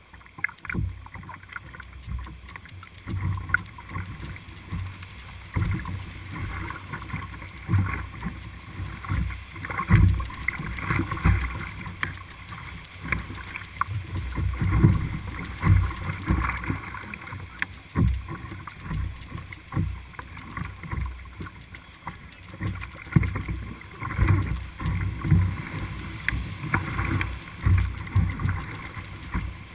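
Whitewater rapids rushing around an open canoe as it runs through, with irregular low thumps and splashes against the boat.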